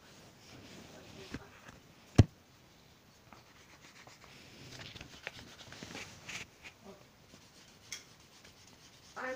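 Paper and fingers rubbing and rustling right against the microphone, with scattered scratchy scrapes and one sharp knock a little over two seconds in.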